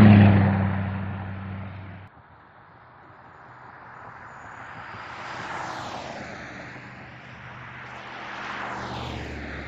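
Road traffic passing on a highway. A loud vehicle fades and cuts off suddenly about two seconds in. Two more vehicles then swell past, about five and nine seconds in, each with a falling pitch as it goes by.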